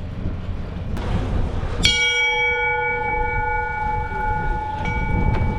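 A bell struck once about two seconds in, ringing on in several steady tones for a few seconds, then struck again near the end, over a low rumble.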